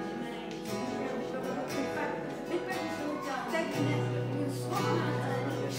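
Soft worship music on a strummed acoustic guitar, with a low sustained note joining about two-thirds of the way through.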